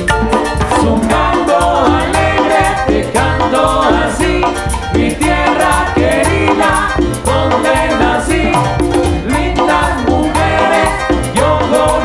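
Latin dance band music playing continuously: a melodic lead and a bass line over a steady dance beat.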